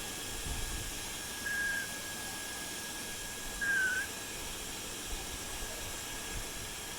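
Baby African grey parrot giving two short, soft whistle notes, one about a second and a half in and one a little before four seconds in, the second dipping slightly in pitch. Beneath them runs a steady high thin tone with hiss.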